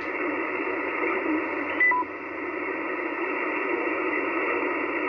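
Ham radio transceiver's receiver hiss: steady band noise through the radio's speaker, squeezed into a narrow voice-channel band, as the frequency sits open between transmissions. About two seconds in, a quick two-note beep sounds, first high and then lower.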